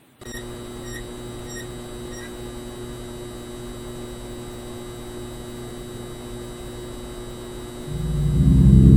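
A steady electrical hum, with four faint short beeps about half a second apart in the first couple of seconds. Near the end a loud, low, pulsing drone swells up quickly.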